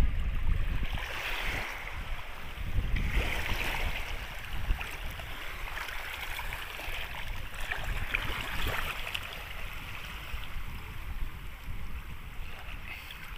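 Small sea waves washing and splashing at the shoreline in irregular surges, with wind rumbling on the microphone, the wind strongest in the first few seconds.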